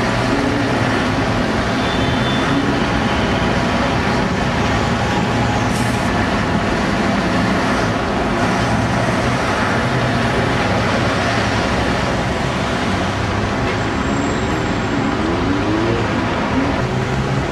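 Diesel engine of a Routemaster double-decker bus running as it drives past, over steady city traffic. Near the end an engine note rises briefly as a vehicle pulls away.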